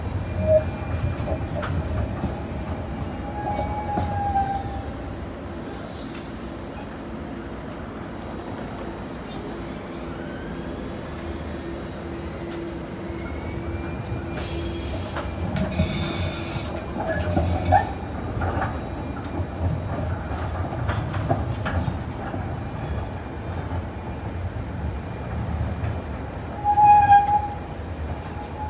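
Two-car Siemens light-rail train running slowly past and pulling away round curved track, with rumbling wheels and squealing wheels on the rails, loudest about halfway through. A high whine rises in pitch partway through, and a short steady tone sounds near the end.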